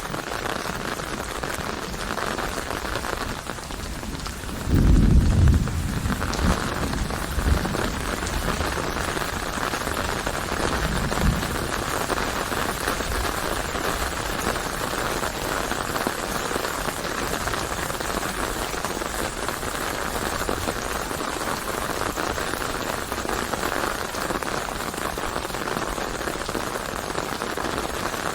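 Steady rain falling in a continuous hiss. About five seconds in there is a loud low rumble lasting a second or so, followed by two fainter low rumbles.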